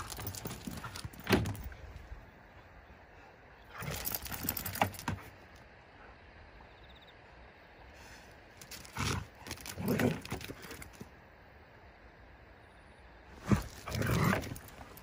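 Two Akita dogs play-fighting on leashes: bouts of scuffling paws on asphalt and play growling, four short bouts with quiet pauses between.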